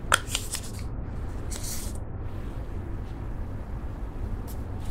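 Handling and opening of a boxed plastic eyeshadow palette: a few sharp clicks and taps at the start, then a brief sliding rub of the packaging, over a steady low background hum.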